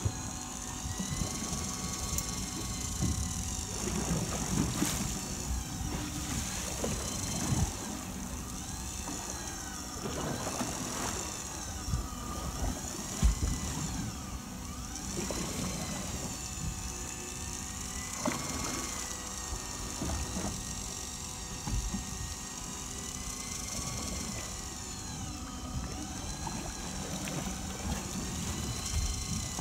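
A motor running steadily, its whine gliding up and down in pitch every few seconds as the load changes, over a low rumble of water against the boat and a few knocks, the sharpest about halfway through.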